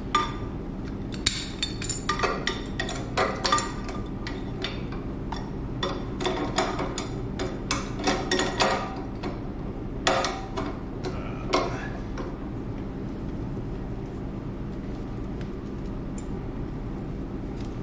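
Metal wrenches clinking and knocking against threaded pipe fittings on an air compressor's outlet as a fitting is screwed in, a quick irregular run of clinks that stops about twelve seconds in. A steady low hum runs underneath.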